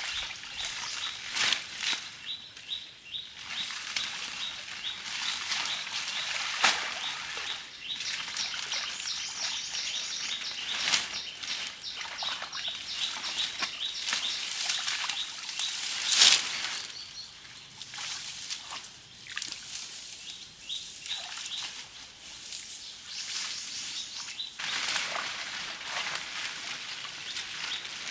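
Birds chirping steadily, with a few sharp short knocks or splashes, the loudest about sixteen seconds in.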